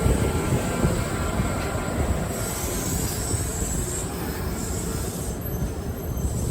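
Kintetsu Osaka Line electric train passing through the station: a heavy, steady rumble of wheels on rails with a high squealing tone that swells about halfway through.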